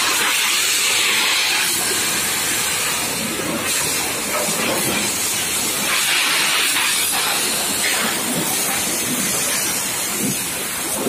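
Water jets from deck-wash hoses spraying hard onto a ship's steel deck: a steady hiss of rushing water.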